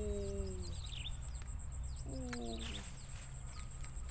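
Birds chirping in short repeated notes, with a lower, slightly falling call heard twice: once in the first moments and again about two seconds in. A steady low rumble runs underneath.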